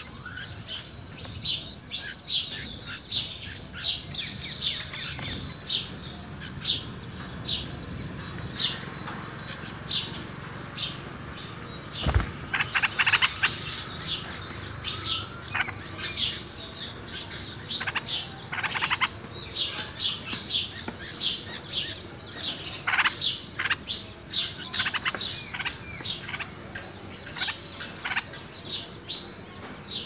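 Bulbul nestlings begging at the nest with short, high chirps that repeat throughout, several a second at times. About twelve seconds in there is a knock, then a louder, denser run of calls, with shorter runs later, as the chicks are fed.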